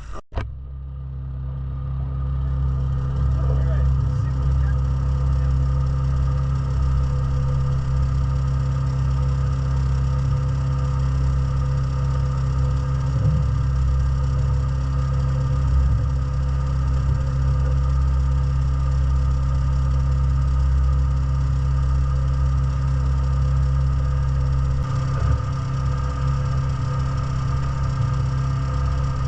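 An engine idling steadily with a deep, even hum.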